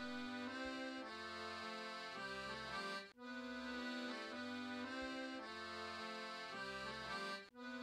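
Quiet background music with sustained chords and a melody, breaking off briefly twice, about three seconds in and near the end.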